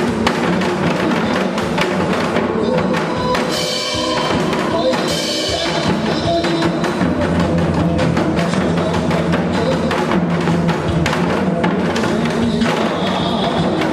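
Janggu hourglass drums played in a fast, steady rhythm along with pitched backing music.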